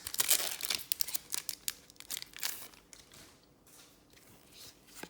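Trading cards being handled and shuffled, with crinkling and rustling. The crinkling is dense for the first two or three seconds, then thins to a few scattered clicks.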